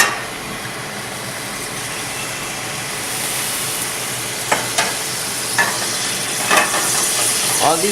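Chardonnay wine sizzling in a hot pan as it deglazes the browned bits, the hiss growing brighter about three seconds in, with a sharp click at the start and a utensil scraping the pan bottom several times.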